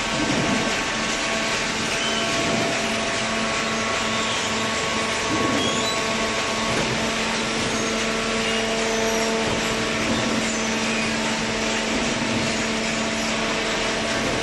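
Horizontal cardboard baler running: a steady mechanical drone with a constant hum, typical of its electric motor and hydraulic pump at work, with a few faint knocks.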